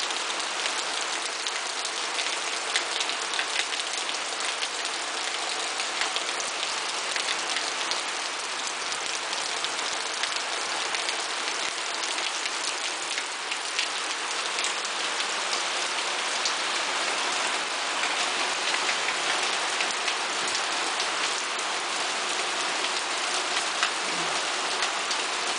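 Heavy rain falling steadily, a constant wash of sound dotted with many small drop hits.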